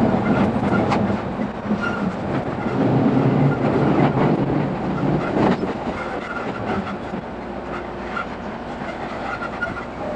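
Running noise of an E217 series electric train heard from inside a passenger car: wheels on the rails and rumble from under the floor. It is louder in the first half and settles down after about six seconds.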